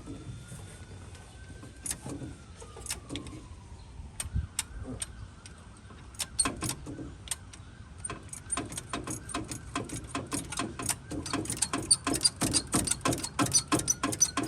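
Rapid light clicking and rattling, sparse at first and then quickening to several clicks a second. This fits the carburettor's throttle linkage being worked by hand to see whether the accelerator pump squirts fuel; the engine is not running.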